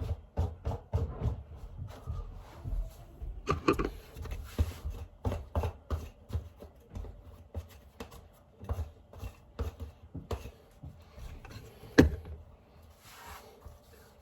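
Handling and rummaging sounds: irregular rubbing, light bumps and knocks, with one sharp knock near the end.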